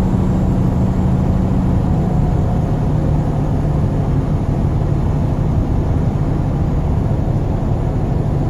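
Vehicle engine and road noise heard from inside the cab while driving: a steady low rumble with an even hum.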